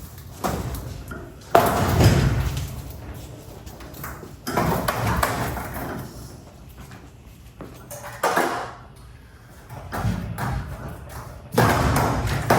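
Garage door hardware being worked on: a series of sudden metallic knocks and thuds, about six in all, each ringing out and fading over a second or so.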